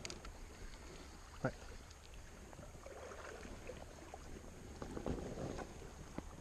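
Shallow river water splashing and lapping as it is stirred by wading legs and a hand dipped into it, with one sharp knock about a second and a half in.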